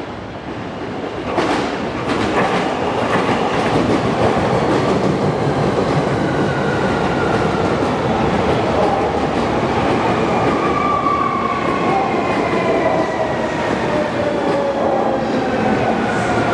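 Hankyu electric train passing close at speed: a steady loud rumble of wheels on rail, with clicks over rail joints as it arrives. In the second half a whine slides slowly down in pitch.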